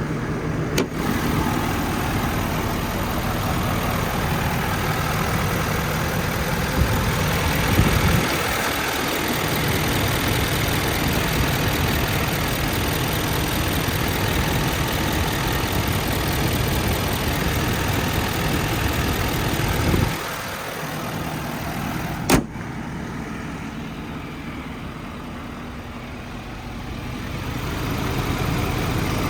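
Ford 6.7-litre Power Stroke V8 diesel idling steadily. About twenty seconds in there is a thump after which the engine sounds quieter, followed by a sharp click.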